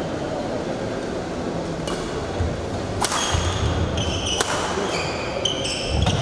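Badminton doubles rally on a wooden indoor court: sharp racket hits on the shuttlecock, the first about two seconds in and then roughly every second or so, with short high squeaks of court shoes and thuds of footwork from about three seconds in, over a low murmur from the spectators.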